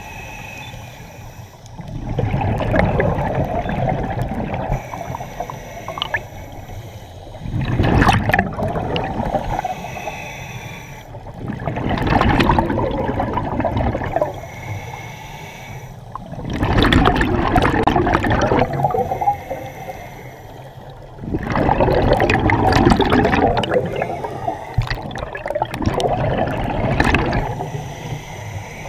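Scuba diver's exhaled bubbles rushing and gurgling from a regulator underwater, in bursts of two to three seconds about every four to five seconds, with quieter gaps between breaths.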